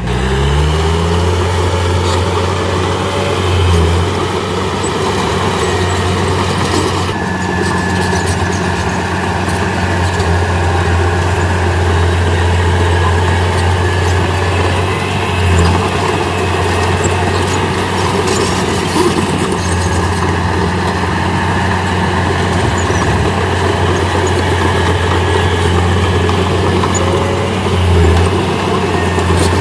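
Diesel engine of heavy earthmoving machinery running steadily under load, with a quick dip and recovery in revs right at the start.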